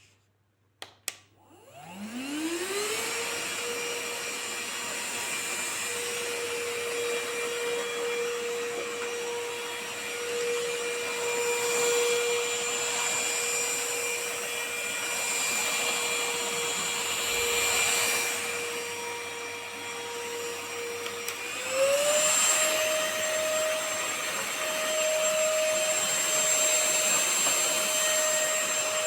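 VersLife S6 Pro cordless stick vacuum switched on with a click, its motor whining up to speed over a couple of seconds and then running steadily. About twenty-one seconds in, the motor steps up to a higher, louder speed.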